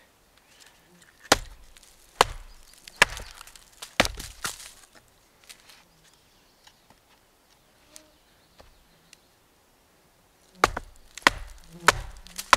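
A large fixed-blade survival knife chopping a notch into a dead-wood rail resting on a stump: a run of sharp woody chops about a second apart, then a quieter stretch with a few faint clicks, then four more chops near the end.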